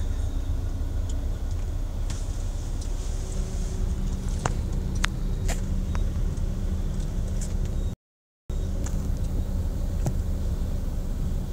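Steady low rumble of a car's engine and road noise heard from inside the cabin, with a few faint sharp clicks. The sound cuts out completely for about half a second just past the middle.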